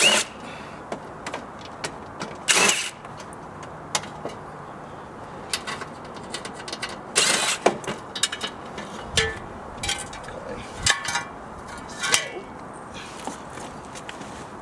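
Scattered clicks, taps and rustles of hands working on a mini split outdoor unit's wiring and casing, with a few louder rustling scrapes at the start, about two and a half seconds in, and about seven seconds in.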